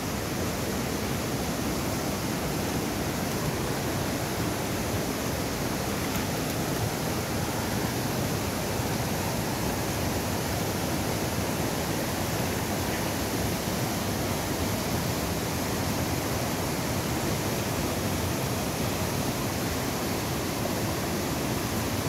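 Steady rush of river water.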